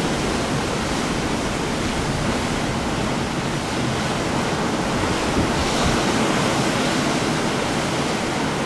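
Rough sea breaking and churning against a rocky shore: a steady rush of surf and foaming white water.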